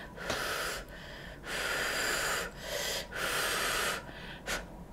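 A person blowing on hot food to cool it: three breathy blows, each lasting about a second, the middle one the longest.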